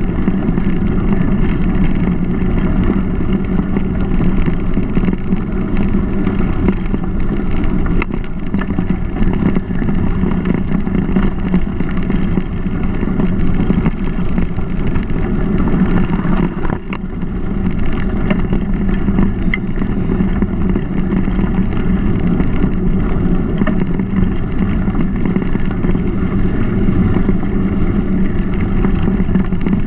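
Steady rumble of wind and tyre noise from a mountain bike riding along a dirt trail, picked up by a GoPro camera carried on the ride, with a brief lull about halfway through.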